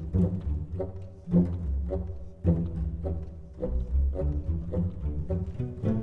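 Instrumental pop music with no singing: a deep bass line under a steady beat.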